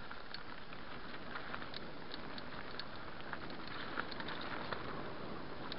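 Mountain bike rolling fast down a rocky dirt singletrack: a steady rushing noise peppered with many small clicks and rattles from the tyres on loose stones and gravel, a slightly louder tick about four seconds in.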